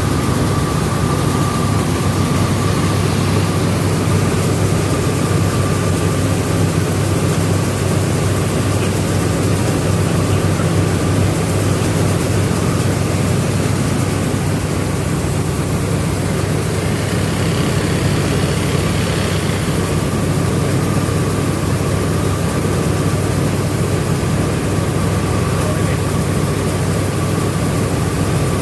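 Rice milling machinery running steadily: a loud, even mechanical drone with a thin, steady high whine over it.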